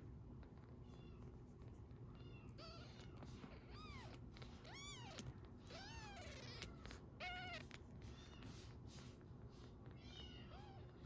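Very young kitten mewing while being stroked: a string of short, high mews, each rising and then falling in pitch, over a low steady purr.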